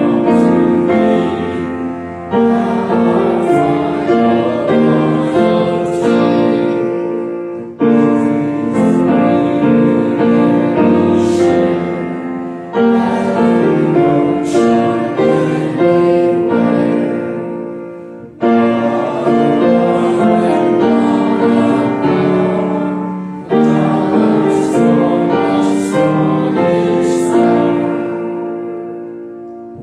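Grand piano accompanying a hymn, played in phrases of about five seconds that each fade away before the next begins, with voices singing along.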